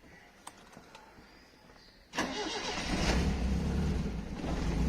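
Toyota Publica's engine starting about two seconds in, at its first start after sitting unused for months. It catches and settles into a steady idle.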